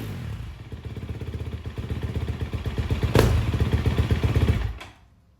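KTM 250 SX-F single-cylinder four-stroke dirt bike engine idling through its stock exhaust, with a sharp throttle blip about three seconds in. The sound then cuts off shortly before the end.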